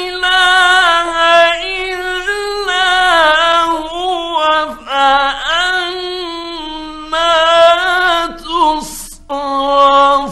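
A male Quran reciter chanting in the melodic mujawwad style, holding long, ornamented high notes that glide and turn, in several phrases with short breaks between them. An old 1950s recording.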